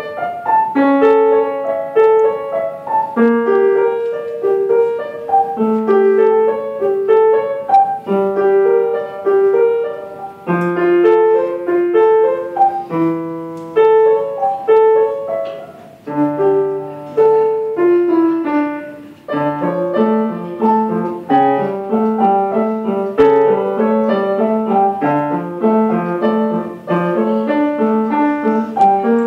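Yamaha upright piano played solo: a melody of repeated short figures over held bass notes, becoming busier with a moving bass line about two-thirds of the way in.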